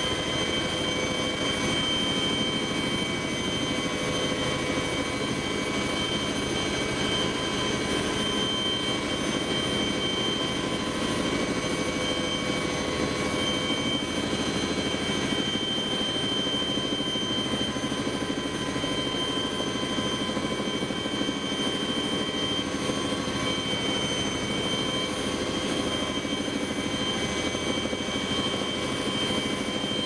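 Military helicopter in flight, heard from inside its cabin: a steady rush of engine and rotor noise with several steady whining tones over it.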